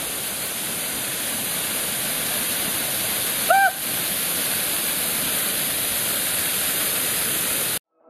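Waterfall pouring down a rock face into a shallow pool: a steady rush of falling water, with one short high call about three and a half seconds in. The sound cuts off abruptly just before the end.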